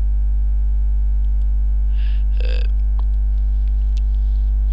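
Loud, steady electrical mains hum at about 50 Hz with overtones, picked up by the recording microphone, with a brief vocal sound from the narrator about two seconds in and a few faint clicks.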